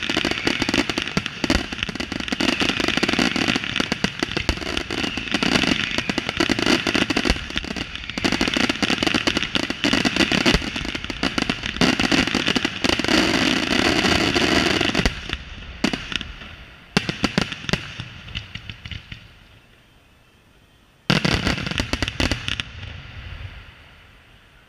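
Aerial fireworks display: a dense barrage of rapid bangs and crackling. It thins out after about fifteen seconds to a few scattered bangs and a short lull, then a last loud burst about twenty-one seconds in dies away.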